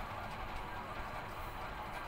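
Coloured pencil scratching across paper in repeated hatching strokes, against a steady background hiss.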